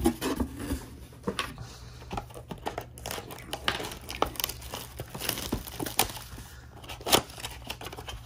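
A trading-card blaster box being opened by hand: its cardboard and wrapping crinkle and tear in a dense run of sharp crackles, the loudest about seven seconds in.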